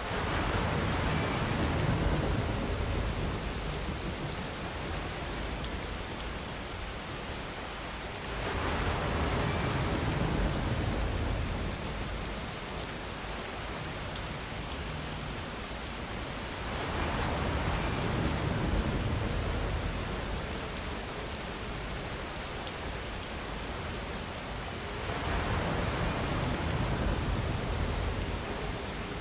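Steady rain falling, swelling in four surges about eight seconds apart, each a few seconds long with a low rumble underneath.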